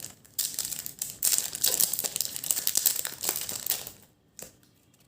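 Foil wrapper of a trading-card packet crinkling and rustling as it is opened, for about three and a half seconds.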